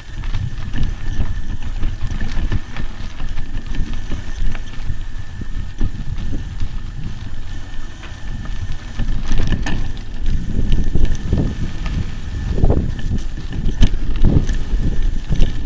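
Mountain bike riding down a rough dirt trail: wind buffeting the camera's microphone over the rumble of tyres on dirt and the bike rattling over bumps, with harder knocks and jolts in the second half.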